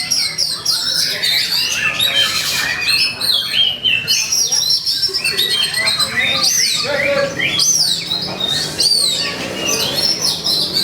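Oriental magpie-robin (kacer) singing without a break: a rapid, varied stream of loud whistles, sweeping chirps and harsh scratchy notes. It is the bird's agitated fighting song, used to provoke rival kacer into singing.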